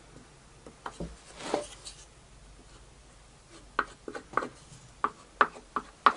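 Plywood pieces handled on a workbench during a glue-up: a short scraping rub about a second and a half in, then a run of light, sharp wooden knocks and clacks over the last two and a half seconds.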